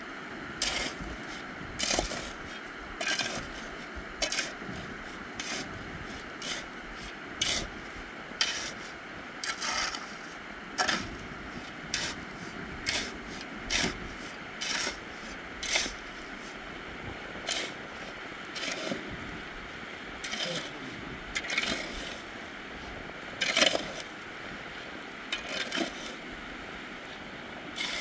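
Repeated short scraping strokes, roughly one a second and uneven in strength, over a steady hiss.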